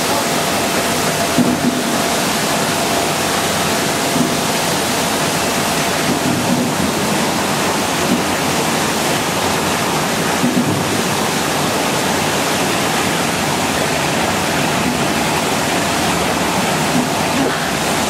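Water churning in an apple washing machine's tank: a steady, even rushing of agitated, bubbling water with apples tumbling through it.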